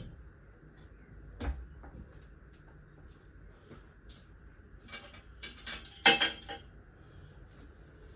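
Metal tools and car parts being handled: a single knock about a second and a half in, then a run of metallic clinks and clatters about five seconds in, loudest about six seconds in.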